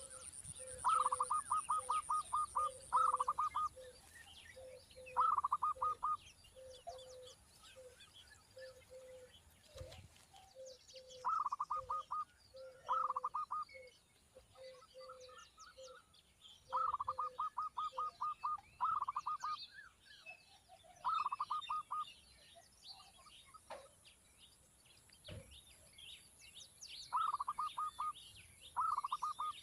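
Birds calling: repeated bursts of rapid stuttering notes, each about a second long, over a steady run of short low notes and scattered high chirps.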